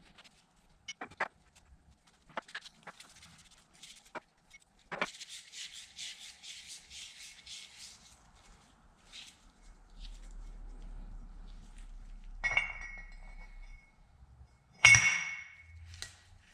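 Metal parts and tools clinking and clicking as a lathe's 3-jaw chuck is taken apart: scattered light clicks, a quick run of small clicks lasting a few seconds, and two sharp ringing metal clinks near the end, the last the loudest.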